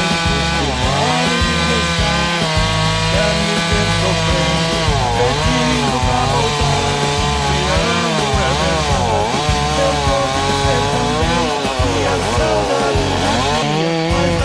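Instrumental break of a Brazilian romantic song: a lead instrument plays a melody full of pitch bends over a stepping bass line.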